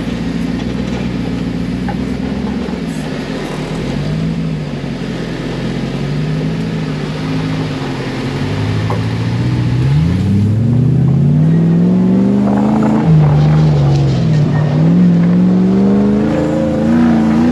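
Off-road side-by-side buggy's engine running as it is driven over a dirt track, its note gently rising and falling at first. About halfway through it revs harder and louder, climbing in pitch several times with sharp drops between.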